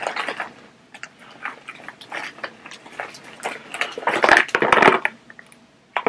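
Crinkling and rustling of paper and a plastic packet being handled: a run of irregular crackles and clicks, busiest about four to five seconds in.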